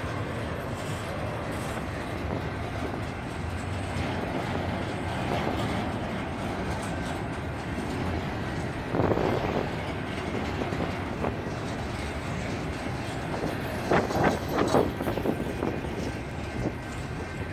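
Double-stack container train's loaded well cars rolling past close by: a steady rumble of steel wheels on rail. A burst of louder knocks comes about nine seconds in, and a cluster of sharper knocks around fourteen to fifteen seconds in.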